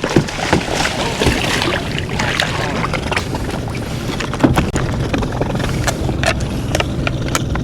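Water and wind noise around a fishing kayak at sea, with scattered knocks and clicks of gear being handled on the hull.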